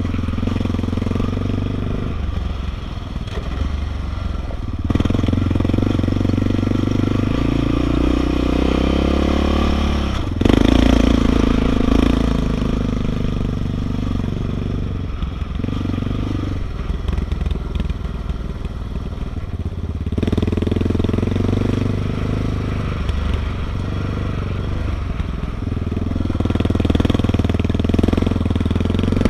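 Yamaha Raptor 660R ATV's single-cylinder four-stroke engine running on and off the throttle, its revs rising and falling. It is loudest in a burst of throttle about ten seconds in, with gravel crunching under the tyres.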